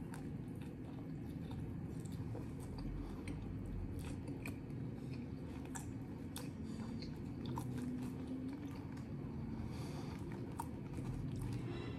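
A person chewing a mouthful of beef sandwich close to the microphone after biting into it, with many small, irregular wet mouth clicks.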